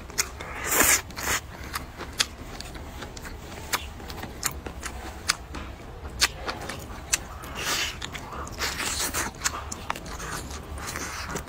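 Close-up eating sounds of a person chewing braised meat with the mouth open: many sharp wet clicks and lip smacks, with louder wet smacking about a second in and again past the middle.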